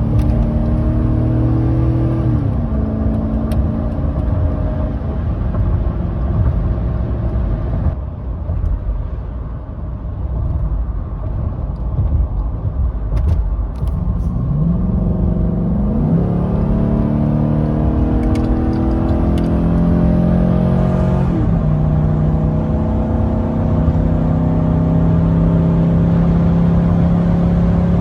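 2011 Chevy Avalanche's 5.3-litre Vortec V8 accelerating through the gears. The engine note climbs and falls back at each upshift a few times, then holds steady near the end.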